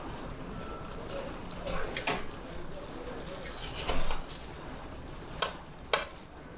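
Metal serving tongs clinking against stainless-steel buffet pans and a plate, several sharp clinks about two, four and six seconds in, over a steady low hum.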